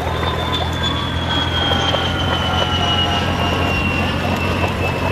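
A heavy vehicle engine running steadily with a low drone, over which a high whine slowly falls in pitch.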